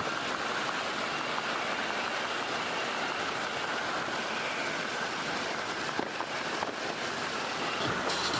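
Steady rush of water along a kayak moving on a river, with a few faint ticks about six seconds in.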